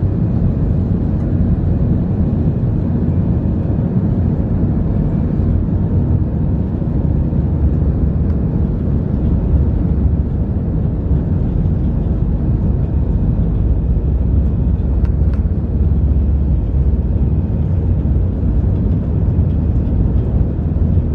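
Steady low rumble in the cabin of an Airbus A320 taxiing on the ground, its jet engines running at low thrust.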